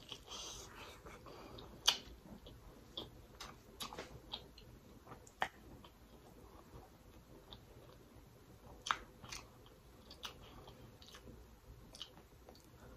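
Close-up mouth sounds of a person eating sauce-coated seafood: biting and chewing, with sharp clicks now and then, the loudest about two seconds in.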